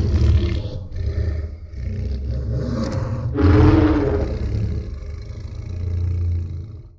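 Godzilla roar sound effect: a long, loud, rough roar that swells again about three seconds in, then fades and cuts off just before the end.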